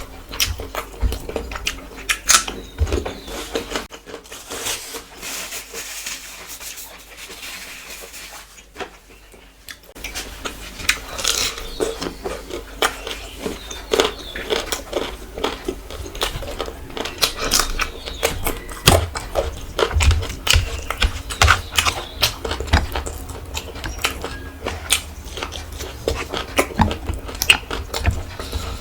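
Close-miked eating: a person chewing rice and curry, with many sharp wet smacks and clicks, quieter for a few seconds in the first third.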